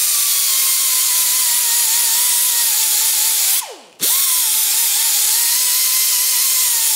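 High-RPM air tool with a wire brush, running with a steady high whine over strong hiss as it scours rust and pitting off rusted steel motorcycle parts. About halfway through it is let off, its pitch dropping as it spins down, then it starts straight back up.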